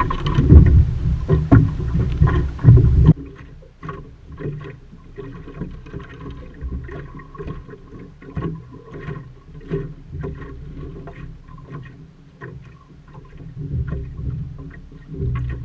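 Water and wind noise aboard a small sailing dinghy, loud and rumbling for about three seconds, then abruptly quieter: water lapping with many small knocks and clicks.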